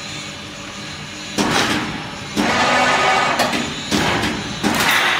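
CNC straight-and-reverse-twist hexagonal wire netting machine running. Four sudden heavy clanks come from about a second and a half in, each followed by a rushing metallic clatter that dies away.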